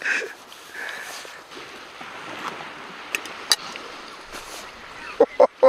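Steady wind and small lake waves washing on the shore, with two sharp clicks about three seconds in and a few short voice sounds near the end.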